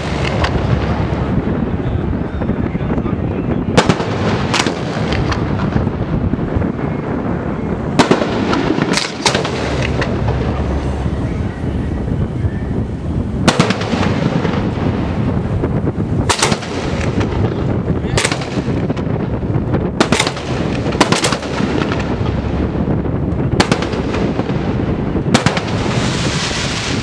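A fireworks display heard from close to the firing line, with about a dozen sharp reports of aerial shells going off at uneven intervals of one to four seconds over a steady low rumble.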